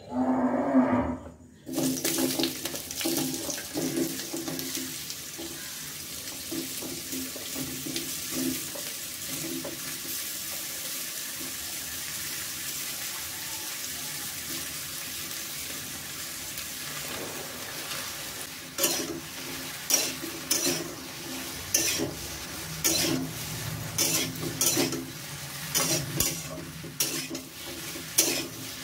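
Chopped vegetables tipped into hot oil in a metal kadai with a brief metallic clatter, then sizzling steadily in the oil. About two-thirds of the way through, a metal spatula starts stirring and scraping the pan in repeated strokes over the sizzle.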